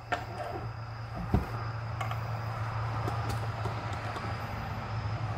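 A few small metal clicks and a thump from a Lee single-stage reloading press as a cartridge case is set in the shell holder and the lever is taken in hand. Under them runs a steady low hum, like an engine running nearby.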